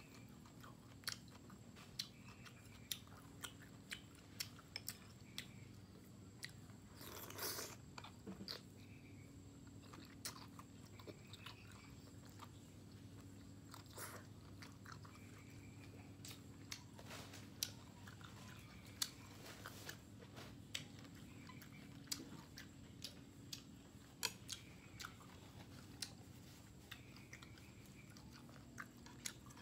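Close-up eating sounds: chewing and biting grilled beef rolls wrapped around enoki mushrooms, with many short, sharp wet mouth clicks spread throughout and a longer noisy burst about seven seconds in.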